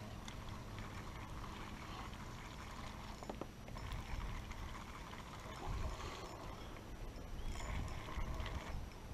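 Water lapping and splashing around a small boat while a hooked smallmouth bass is played on a bent spinning rod, with low rumbling surges about two-thirds of the way in and again near the end.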